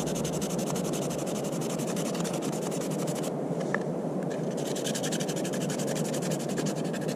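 Small knife blade scraping a thin wooden stick in rapid short strokes, about ten a second, in two runs with a pause of about a second between them.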